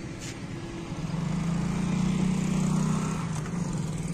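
Road traffic: a passing motor vehicle's engine hum and tyre noise swell for about two seconds, loudest around the middle, then fade.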